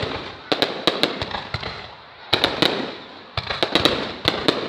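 Fireworks going off: volleys of sharp cracks and pops, a new volley starting about once a second, each trailing off into a fading rumble.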